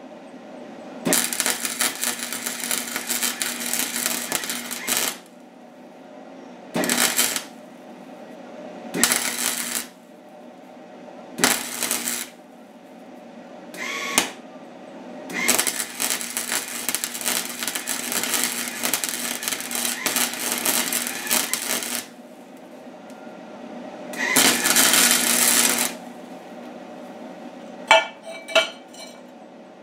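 Wire-feed (MIG) welder laying beads on steel: a harsh, sputtering arc crackle in about seven separate runs, the longest about six seconds, with a steady low hum underneath between them. Two short sharp clicks come near the end.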